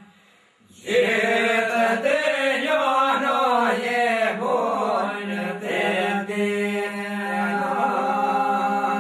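Men singing a northern Albanian two-part polyphonic song: a lead voice carries a wavering, gliding melody over a steady drone held by the others. The singing drops out at the start and comes back in about a second in.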